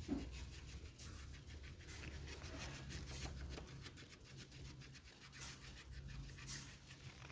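Faint, rapidly repeated scraping of a knife on a bark-stripped Indian jujube branch, scraping away the cambium layer down to the bare white wood to prepare the branch for air-layering.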